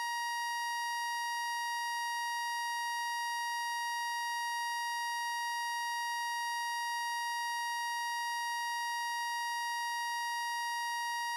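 A single steady electronic tone, high-pitched and unbroken, holding the same pitch and level throughout with no other sound.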